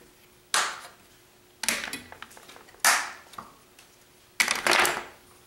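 Plastic quick-release bar clamps being undone from a glued wooden canoe hull and set down on a wooden workbench: four sharp clacks, the last, about four and a half seconds in, a longer rattling clatter.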